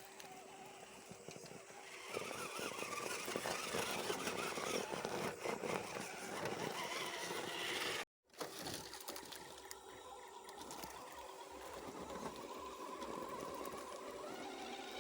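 Electric RC scale crawler's motor and geartrain whining as it crawls, with tyres scrabbling over dirt and rock. The sound cuts out for a moment about eight seconds in, then resumes.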